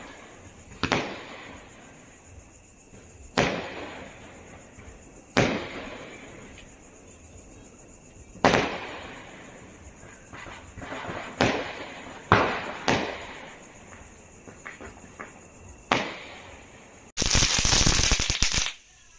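Diwali firecrackers going off one at a time: about eight sharp bangs, each trailing off in an echo. Near the end comes a loud, dense crackling hiss lasting about a second and a half, from a ground firework flaring.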